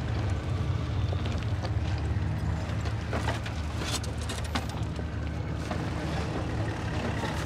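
A steady low rumble with a few short sharp knocks about three to four and a half seconds in.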